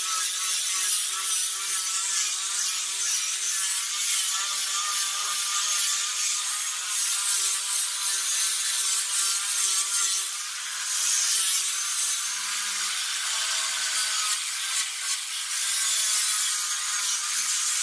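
Electric angle grinder fitted with a sanding disc, running with a steady whine while the disc rubs across a teak (segun) wood panel, smoothing it for polishing. The sanding noise eases briefly about ten seconds in.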